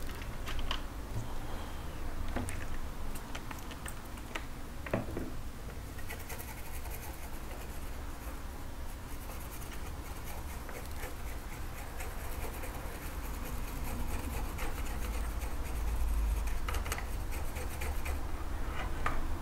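Scratching and small clicks of soldering and handling work on a circuit board, busiest in the middle stretch, over a steady low electrical hum.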